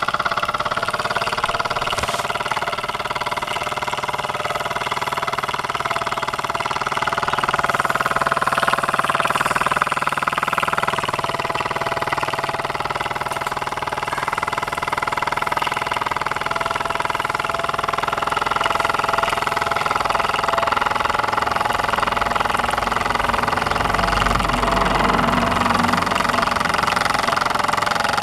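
Mamod SE1 toy steam engine, a single oscillating cylinder turning a flywheel, running steadily at speed with a rapid, even mechanical beat. It gets a little louder about seven seconds in.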